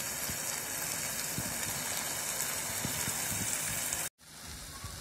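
Chicken in masala sizzling in a pan: a steady hiss with small scattered crackles and pops. It breaks off sharply about four seconds in, then goes on quieter.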